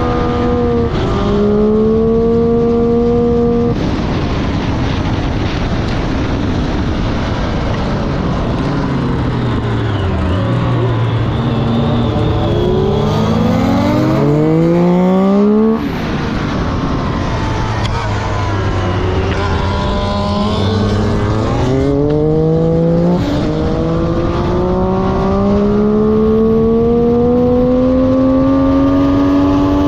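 Motorcycle engine at racing speed on a circuit: the revs climb with brief breaks at upshifts, fall away under braking about a third of the way in, then rise hard again. A sudden cut at an upshift comes about halfway, and the revs build steadily toward the end.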